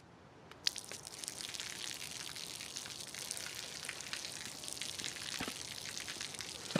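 Water streaming down from overhead and spattering on a wet pavement: a steady patter with many small drip ticks, starting with a sharp tap under a second in.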